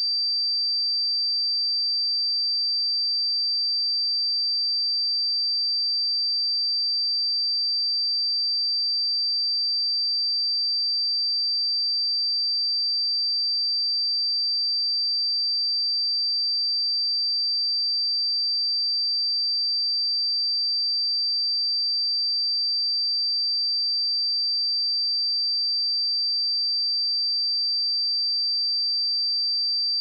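A steady, high-pitched pure sine tone at 4676 Hz, held at constant pitch and level: a test tone for checking speakers or headphones.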